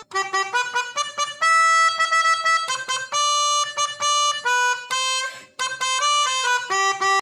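Background music: a single reedy melody line of quick short notes and longer held notes, with no bass or beat under it.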